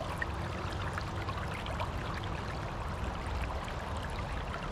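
Steady rush and trickle of flowing river water, with a low rumble underneath and small scattered ticks of splashing.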